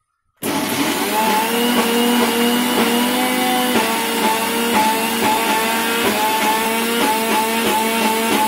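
Preethi mixer grinder switched on about half a second in, its motor running loud with a whine that wavers and shifts in pitch as it grinds soaked chana dal with chillies, ginger and garlic into vada batter.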